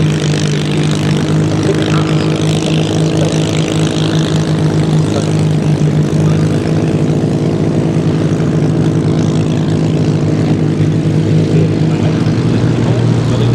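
Rolls-Royce Merlin V12 engine of a Supermarine Spitfire idling on the ground, a steady drone that holds one even pitch.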